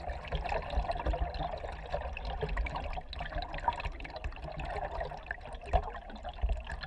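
Stream current gurgling and bubbling over rocks, heard through a submerged camera, with many small ticks and a low rumble.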